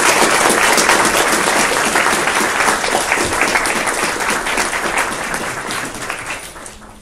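Audience applauding, loud at first and dying away near the end.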